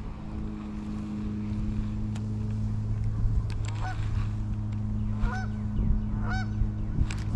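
Geese honking, three short calls from about halfway through, over a steady low hum.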